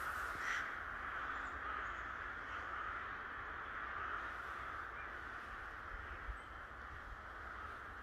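Many crows cawing at once in a treetop nesting colony, their calls blending into one dense, unbroken din that eases slightly toward the end.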